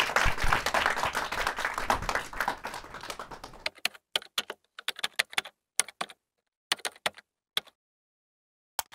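Studio audience applause for the first few seconds, which stops abruptly. Then computer-keyboard keystrokes follow in short quick runs with pauses between them: someone typing a search.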